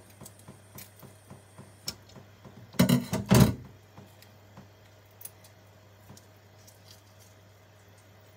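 Raw shrimp being peeled by hand over a stainless mesh colander: faint small clicks of the shells coming off. About three seconds in there is a brief, loud clatter of metal as the kitchen knife is moved off the colander.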